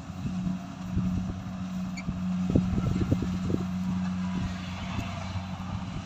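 Kubota rice combine harvester's engine running with a steady hum, with a short cluster of low thumps about halfway through.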